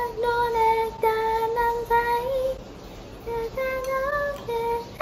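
Background song with a high female voice singing a gentle melody of held notes that step up and down.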